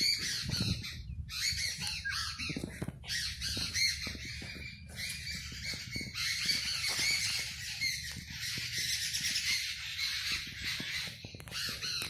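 Many birds calling over one another in a dense, continuous chorus of high chirps and calls.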